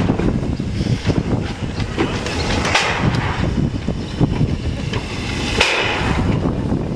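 Kč4 narrow-gauge (750 mm) steam locomotive moving slowly on the track, its wheels and running gear clanking continuously. Two loud, short bursts of steam, about three seconds apart, stand out, near the middle and toward the end.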